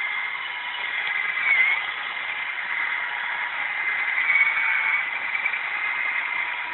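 Single-speed power drill running flat out, turning an Awesome Auger weeding bit that churns through soil and weeds: a steady motor whine over a gritty grinding noise.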